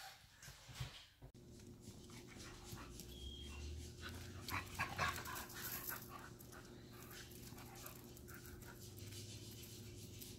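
Siberian huskies panting as they play, faint, with a few short louder sounds about halfway through, over a steady low hum.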